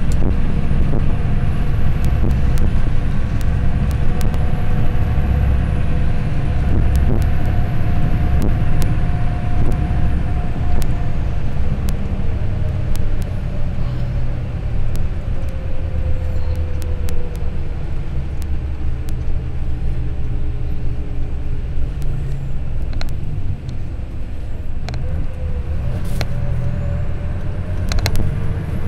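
Moving bus heard from inside the cabin: a steady low engine and road rumble, with a faint engine note that falls around halfway and rises again near the end. Scattered sharp clicks sound throughout.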